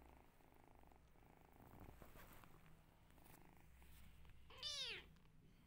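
Kittens purring faintly, then one short meow about four and a half seconds in, its pitch rising briefly and falling away.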